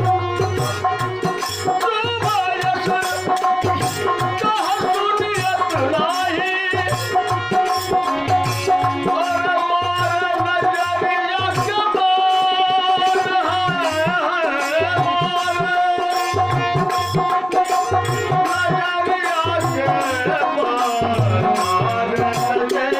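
Music: a gliding, ornamented melody over a steady hand-drum beat in teen taal, without words.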